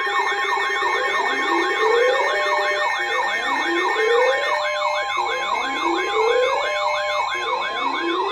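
Electronic siren sounds layered over steady alert tones. A fast warble of about three cycles a second runs throughout, and a slower rising sweep repeats about every two seconds.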